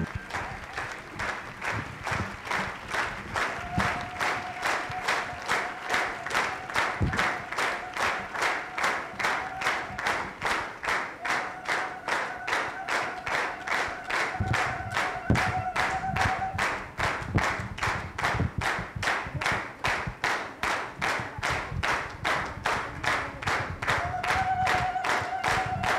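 A crowd clapping in unison to a steady beat, about two and a half claps a second. Voices hold long high notes over the clapping at times.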